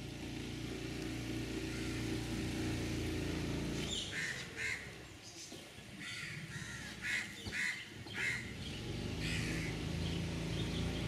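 A boat's engine runs with a steady low drone, which drops away for a few seconds in the middle and then returns. Crows caw repeatedly in the gap, about half a dozen calls.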